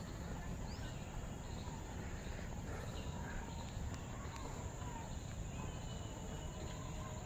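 Open-air ambience: a steady low rumble with faint, scattered chirps.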